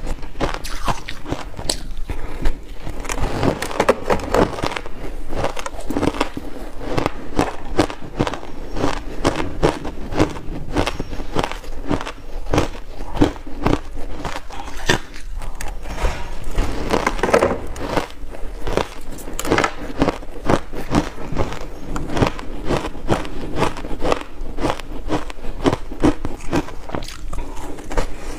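A person chewing crunchy shaved ice pressed into logs with buckwheat, a dense, steady run of crisp crunches. A fresh bite is taken near the end.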